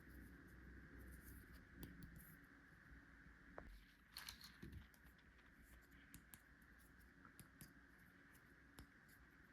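Faint, scattered clicks and light taps of small plastic toy tools and packaging being handled, over a steady faint hiss.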